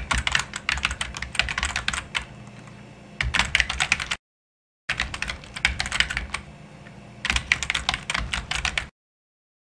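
Rapid clicking like typing on a keyboard, in two similar runs of about four seconds separated by a brief silence, each run denser at its start and end and lighter in the middle; it stops about a second before the end.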